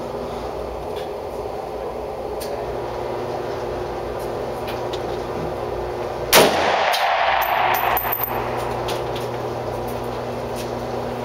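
A single shot from a Springfield Armory M1A rifle in .308 about six seconds in, with a long echo off the hard walls of an indoor range, over a steady background hum.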